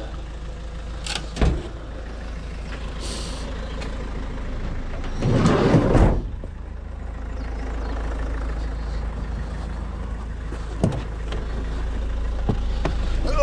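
A vehicle engine running with a steady low rumble. There are a few short knocks early on, a brief hiss around three seconds in, and a louder clatter at about five and a half to six seconds.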